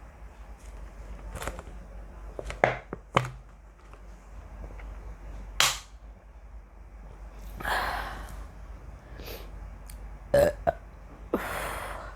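A woman burping repeatedly, the gas coming up from chugging carbonated cola: a string of short, sharp burps in the first half, then two longer burps around the middle and near the end.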